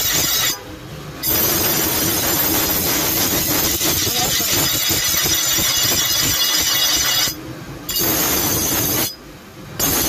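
Meat cleaver blade ground on a spinning bench grinder wheel to sharpen it: a loud, harsh grinding hiss that drops away three times for about half a second, leaving a lower hum, as the blade is lifted off the wheel.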